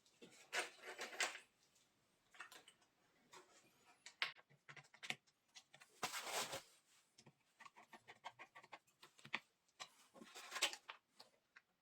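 Irregular clicks, taps and short rustling scrapes of hand work on small parts, with louder bursts about a second in, around the middle and near the end.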